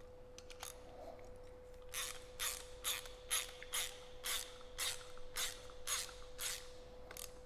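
Socket ratchet wrench clicking in short bursts, roughly two a second, starting about two seconds in, as the nut is tightened onto the bottom of a drywall loading pump's plunger shaft.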